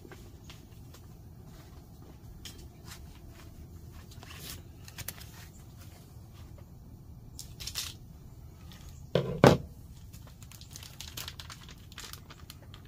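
Plastic food packaging being torn open and crinkled, with scattered small clicks of handling. Two sharp knocks close together, about nine seconds in, are the loudest sounds.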